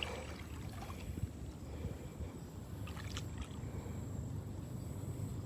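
Faint water sloshing over a steady low rumble, with a few light knocks about a second in and around three seconds in, from someone wading in shallow water.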